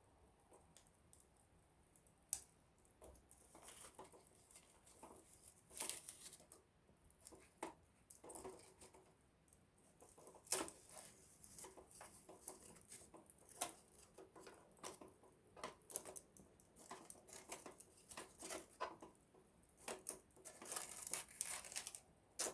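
Small wood campfire crackling: irregular sharp pops and snaps of burning wood over a faint hiss, busier around six seconds, around eleven seconds and near the end.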